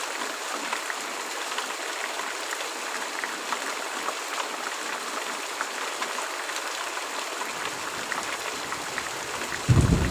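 Steady rain with scattered drops ticking. Just before the end, a loud, low thunder rumble suddenly begins.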